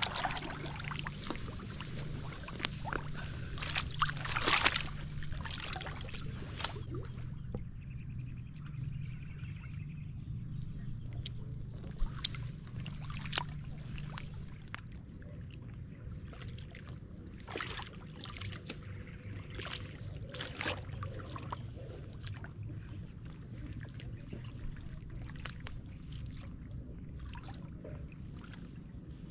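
Water sloshing, trickling and splashing as weeds are pulled out of a duckweed pond, with scattered sharp clicks and a louder burst about four seconds in. A low steady hum sits underneath.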